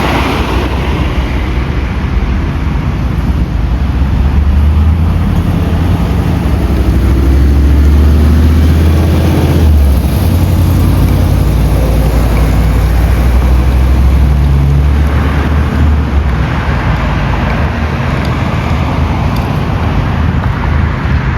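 A motor vehicle driving: a steady low engine and road rumble, a little stronger for a few seconds in the first half.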